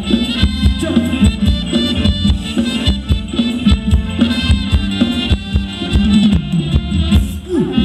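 Live band playing Thai ramwong dance music, with a quick, steady percussion beat under the melody.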